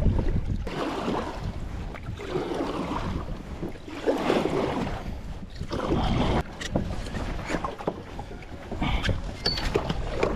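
Water splashing and sloshing around a kayak in uneven swells, with wind rumbling on the microphone and a few short knocks in the second half.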